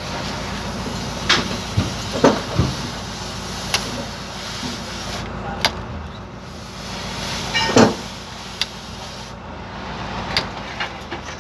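Hammer knocks on the metal yoke of a truck's propeller-shaft cross joint (universal joint) as the new joint is seated and clipped in: a quick cluster of sharp knocks in the first three seconds, then single knocks every second or two, the loudest just before eight seconds. A vehicle engine runs steadily underneath.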